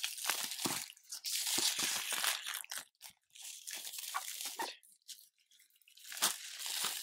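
Clear plastic shrink wrap being torn and crumpled off a cardboard board game box, in irregular crackling bursts, with a pause about five seconds in and a short knock near the end.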